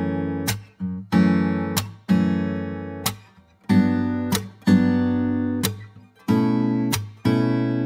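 Background music: acoustic guitar strumming chords, a new chord about every second, each left ringing before the next.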